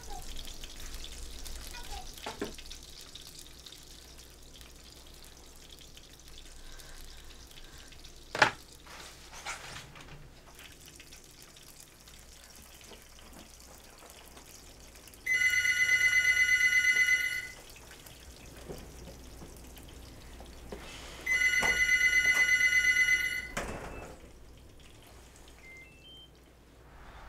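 A telephone ringing: two rings of about two seconds each, a high warbling tone, starting about fifteen and twenty-one seconds in, with a third beginning right at the end. Before them, faint water running at a kitchen sink and one sharp knock about eight seconds in.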